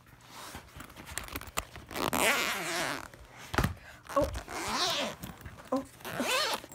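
Zipper of a DVD carrying case being pulled open in long scraping strokes, with a single knock about halfway through and a few short vocal sounds.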